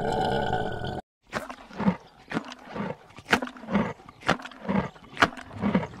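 A pig's long, rough grunt, then after a brief break a run of short animal calls, about two a second.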